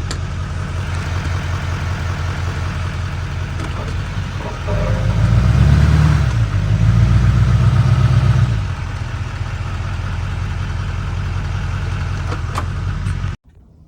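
Vehicle engine running steadily, revved up twice in a row about five to nine seconds in, then settling back; the sound cuts off suddenly near the end.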